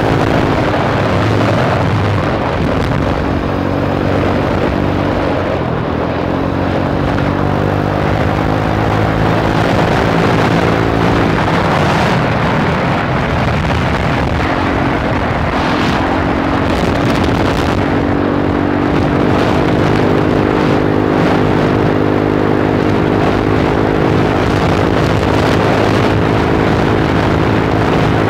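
Motorcycle engine running while riding, its pitch dipping and climbing again several times as the throttle eases and opens, with wind rushing over the microphone.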